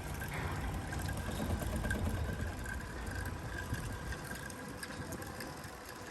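An engine running steadily at idle with a low rumble.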